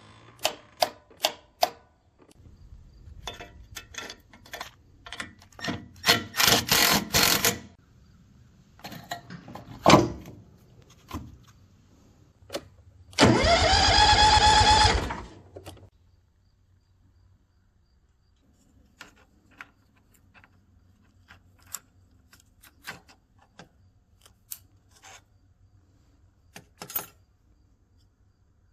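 Riding mower's starting circuit: a quick run of sharp clicks, clattery handling noise, then about two seconds of an electric starter motor whirring up in pitch and cutting off without the engine catching. This fits a failing starter relay.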